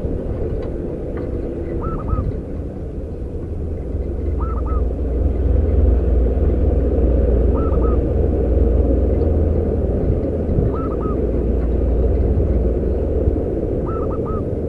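Zebra dove cooing: short groups of two or three quick coos repeated about every three seconds, over a steady low rumble that is the loudest sound.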